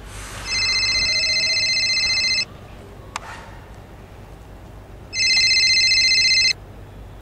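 Mobile phone ringing: two rings of a trilling electronic tone, each lasting about one and a half to two seconds, with a pause between them. A single click sounds between the rings.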